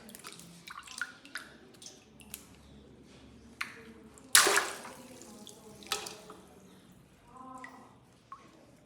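Water dripping and splashing as a water-filled plastic ice-pack bag is handled, with light scattered clicks and one sharp, loud snap about four seconds in.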